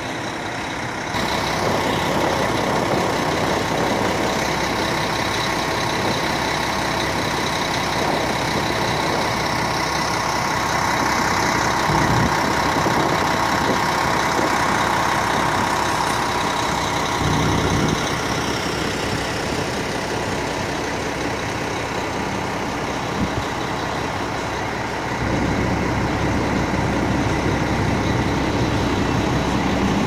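Hook-lift roll-off garbage truck running steadily as its hydraulic arm handles a steel dumpster, its diesel engine the main sound. About 25 seconds in, a deeper, heavier engine note comes in.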